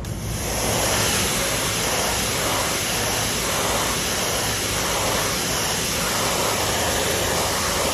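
Pressure washer spraying water: a loud steady hiss of spray comes on right at the start, with a regular pulsing in it, over the low running of the machine's engine.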